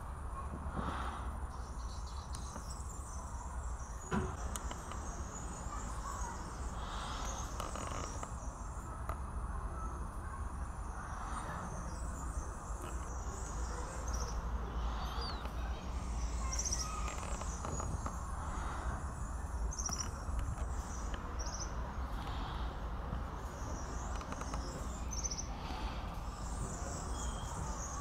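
Outdoor ambience: scattered short high chirps over a steady low rumble, with a single sharp click about four seconds in.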